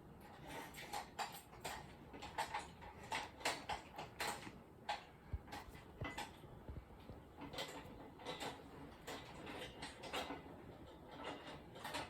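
Irregular light clicks and knocks, a few a second, with a couple of low thuds about five and six seconds in.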